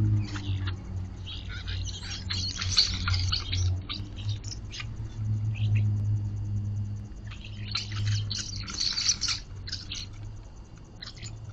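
Small birds chirping in two quick flurries of short, high chirps, over a low steady hum.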